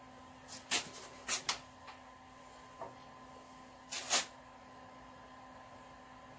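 Light clicks and taps from small parts and a tube of paste thread-locker being handled: a few in the first second and a half, then a double tap about four seconds in, over a faint steady hum.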